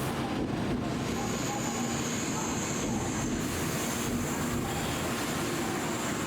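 Shinkansen platform ambience: a steady rumble and hiss of trains and station, with a thin high-pitched whine that comes in about a second in and holds steady.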